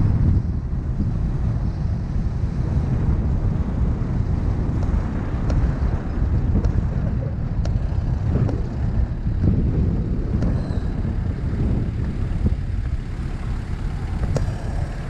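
Steady low rumble of wind buffeting the microphone mixed with vehicle and road traffic noise, with a few faint clicks.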